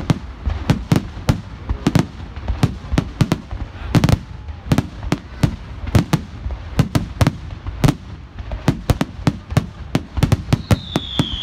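Fireworks finale: a rapid barrage of aerial shell bursts, several bangs a second, with a high, slightly falling whistle coming in near the end.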